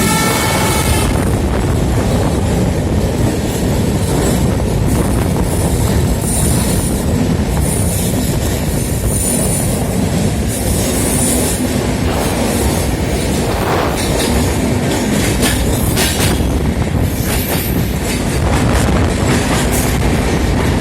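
Train running at speed, heard from aboard: a steady rumble of wheels on rails with clicks over the rail joints. The tail of a train horn ends about a second in, and faint high wheel squeals come and go in the middle.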